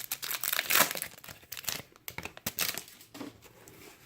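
Foil wrapper of a trading-card pack crinkling and tearing as it is ripped open by hand, loudest in the first second and tapering off.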